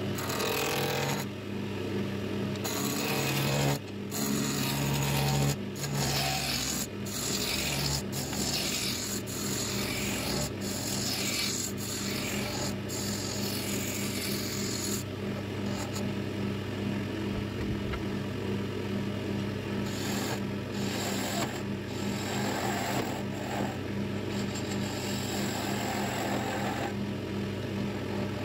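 Wood lathe running with a steady motor hum while a turning gouge cuts a spinning mahogany blank, a rasping hiss of shavings that rises and falls as the tool moves along the wood.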